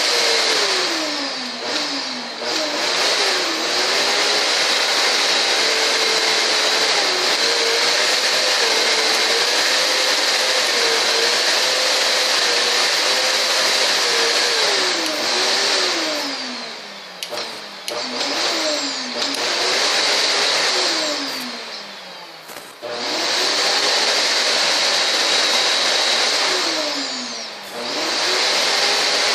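Vacuum cleaner motor whining with a strong hiss, its pitch repeatedly sliding down and swinging back up like a car engine revving. Twice, past the middle, it winds down low and quieter before picking up again.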